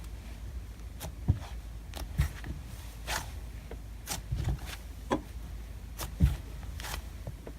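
Hands squishing and stretching a cloud slime, making irregular soft squelches and pops about once or twice a second over a low steady hum.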